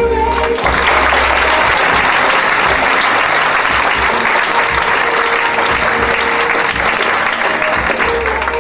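Audience applauding steadily as the song stops just at the start.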